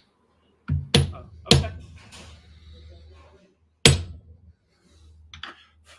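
A small brass-headed mallet striking a metal fitting of a parrying dagger to drive it into place: three sharp blows in the first second and a half, a harder one about four seconds in, and a lighter tap near the end, each with a brief metallic ring.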